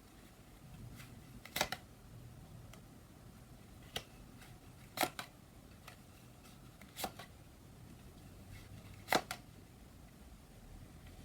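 Tarot cards being laid and flipped onto a table: five short, sharp card snaps a second or two apart, several of them doubled.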